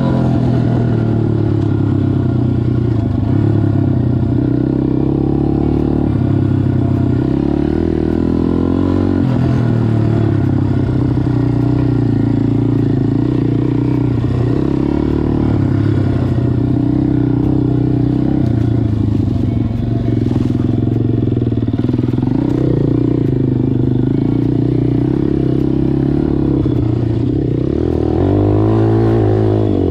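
MRF 140 RC-Z pit bike's four-stroke single-cylinder engine running under load while riding, its pitch rising and falling as the throttle is opened and closed.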